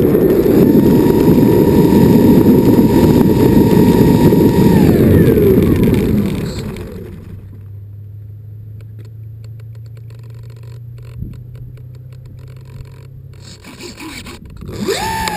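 A twin-engine RC plane rolling on pavement with its engines running, heard as loud rough wheel and wind noise under a steady whine. About five seconds in, the whine slides down in pitch as the throttle comes off, and the noise falls to a low steady hum with scattered light clicks while the plane sits still.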